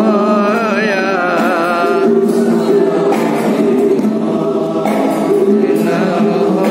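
A group of men chanting an Islamic devotional song together in unison, their voices held on long notes that waver and slide in pitch.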